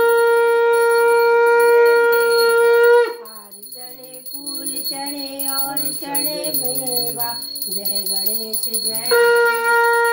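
Conch shell (shankh) blown in one long steady note that stops about three seconds in, sounded to close the aarti. Voices singing follow, with a small hand bell ringing, then the conch is blown again near the end.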